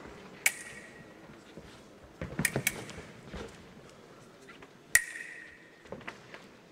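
Foil blades clashing: a few sharp metallic strikes that each ring briefly, with a cluster around two and a half seconds in and the loudest strike about five seconds in.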